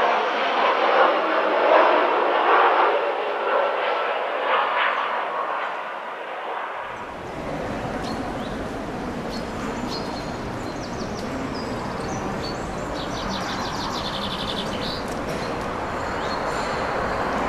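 A steady rushing noise that cuts off abruptly about seven seconds in. It gives way to a library ambience of birds in a forest beside a brook: an even rushing of running water, with songbirds chirping and one fast trill.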